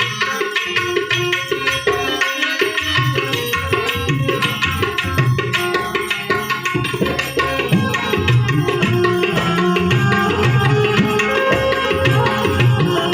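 Instrumental interlude of Gujarati santvani devotional music: tabla playing a steady rhythm under harmonium holding the melody.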